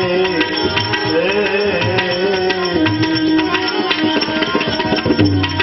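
Devotional bhajan music between sung lines: tabla playing a steady rhythm under held melodic notes.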